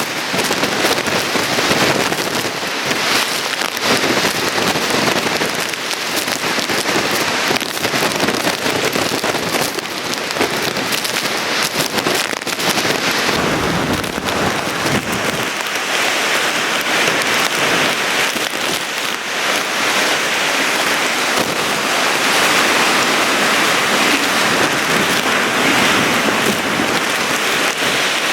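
Heavy wind-driven hurricane rain: a dense, loud, steady hiss with many sharp patters of rain hitting surfaces. The sound shifts about halfway through.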